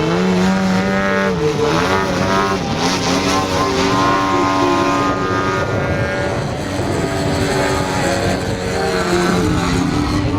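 Propeller-driven DA-170 two-stroke petrol engine of a large model Sukhoi Su-29 aerobatic plane in flight. Its pitch dips and rises several times in the first couple of seconds as the throttle and the passes change, then holds steadier.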